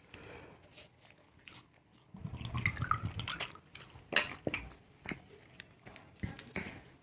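Eating chow mein: cutlery clicking against a plate, with chewing between the clicks.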